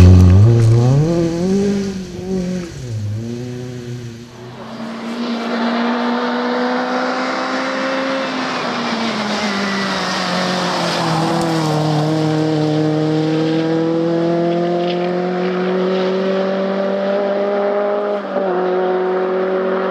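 Škoda Felicia Kit Car rally car's four-cylinder engine at full throttle. It is loudest at the start as it pulls away close by, its pitch swinging up and down. After about four seconds it comes back as a long pull, the note climbing steadily and dropping briefly at each upshift, about three times.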